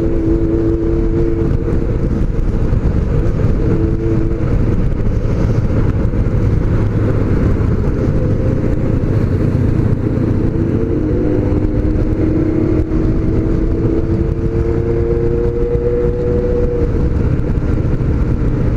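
Honda CBX750F motorcycles' air-cooled inline-four engines running at a steady road speed. The engine note drifts slowly up and down over a constant low rumble, and around the middle more than one engine note overlaps.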